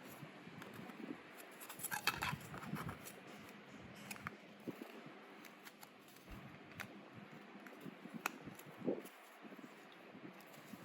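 Packaging being handled and opened by hand: scattered small clicks, scrapes and crinkles, busiest about two seconds in, with sharp ticks near the end.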